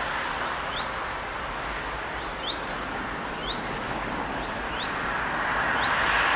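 Short, rising bird chirps repeating about once a second over steady outdoor traffic noise, which dips and then swells again near the end as a vehicle approaches.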